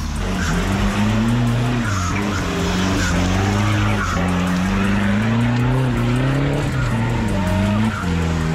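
A 4x4 ute's engine revving hard, its pitch rising and falling again and again, as the wheels spin and claw for grip climbing a steep muddy track.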